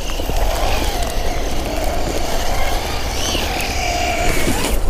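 Brushless electric motor of a VKAR SCTX10 V2 1/10 RC short course truck whining as it drives figure eights through snow, its pitch rising and falling with the throttle over a steady low rumble.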